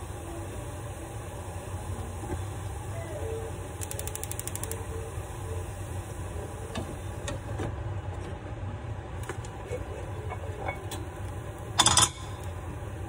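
A steady low kitchen hum, with a brief loud clatter of the frying pan against a plate near the end as the pan-fried risotto rice cake is turned out of the pan.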